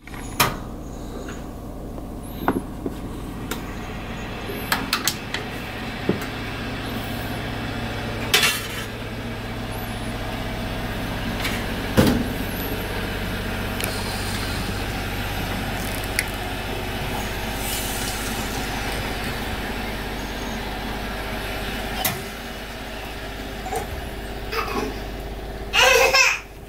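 Steady low hum and hiss, with scattered light clicks and knocks. About a second before the end, a baby bursts into loud babbling cries.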